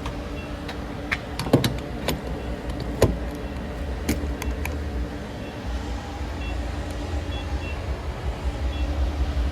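Car cabin sound: a steady low rumble and hum from the engine and road, with a scatter of irregular sharp clicks and knocks in the first half.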